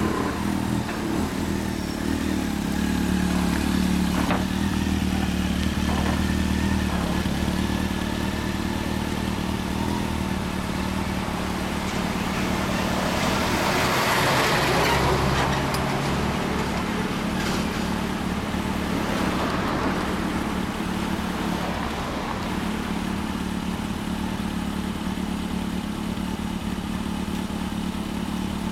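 Two motorcycles idling steadily, a Honda CB1100 EX and a Honda PCX125 scooter, one of them fitted with a White Knight aftermarket muffler. About halfway through, a large vehicle passes close by, and its noise swells and fades over the idle.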